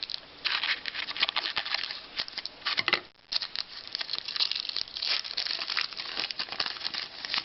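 Foil trading-card pack wrapper being torn open and crinkled by hand, a dense run of irregular crackles with a short pause about three seconds in.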